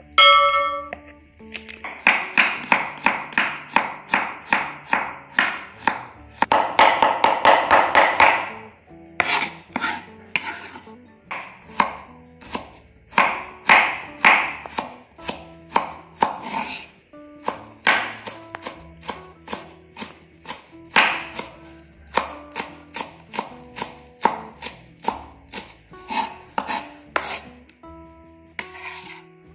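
Kitchen knife chopping garlic and spring onions on a wooden cutting board: sharp knocks of the blade on the board, in a fast run of chops for the first several seconds, then slower single strokes.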